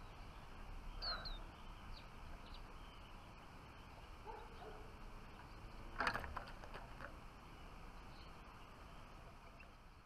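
Faint, scattered high chirps of a flock of small finches, siskins and redpolls, with a brief louder burst of noise about six seconds in.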